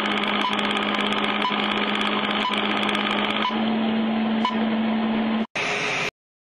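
Steady static hiss over a low electrical hum, with a short beep about once a second. It cuts off about five and a half seconds in, gives a brief burst of brighter hiss, then stops.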